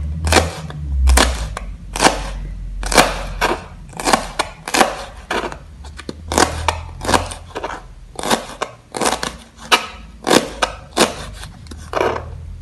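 Kitchen knife slicing young petai cina (Leucaena) pods on a plastic cutting board: quick, sharp chops of the blade through the crisp pods onto the board, about two to three a second in an uneven rhythm.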